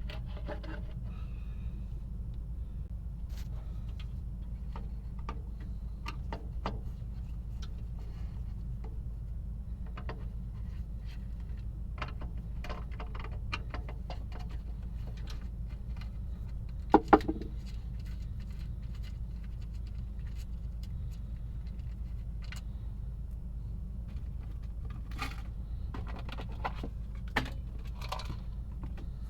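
Scattered small metallic clicks and clinks, like tools and small parts being handled on a workbench, over a steady low hum. A sharper double knock about 17 seconds in, and a cluster of clicks near the end.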